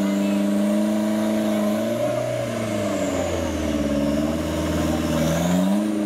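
Modified off-road 4x4 straining to climb out of a muddy creek, its mechanical drone holding steady, dropping in pitch about two seconds in and rising again near the end as the load changes.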